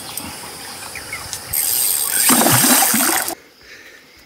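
Spinning reel being cranked while a hooked fish pulls on the bent rod. The reel's gears whirr in a long burst from about a second and a half in, which cuts off suddenly.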